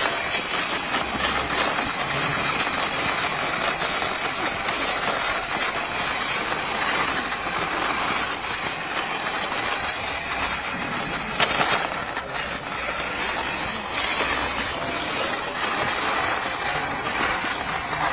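Remote-control toy sports car driving over stone paving, its small motor and wheels making a steady whirring rush. There is a single sharp tap about eleven seconds in.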